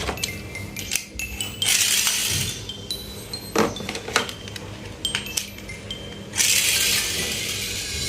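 Breaking-glass crash sounds: a run of sharp clinks with short ringing tones, and two brief hissy shattering bursts, about two seconds in and again near the end.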